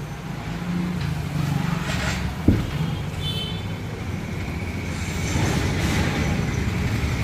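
A motor vehicle engine runs steadily amid road traffic, with one sharp knock about two and a half seconds in.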